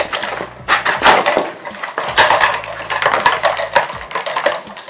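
Clear plastic packaging crinkling and crackling as it is pulled and torn away from a cardboard box, a quick irregular run of loud rustles.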